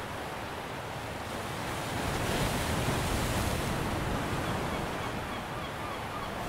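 Sea waves washing on the shore, with wind; the surf swells about two seconds in and eases off again.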